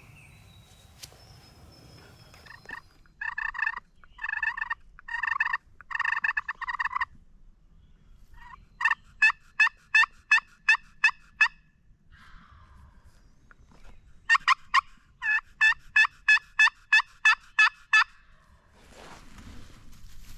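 Wild turkeys calling: four gobbles close together a few seconds in, then two runs of short, evenly spaced yelps at about three a second, which are the loudest sounds.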